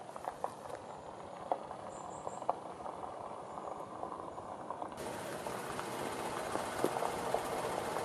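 Outdoor ambience: a steady low hiss with scattered small clicks, turning brighter and a little louder about five seconds in.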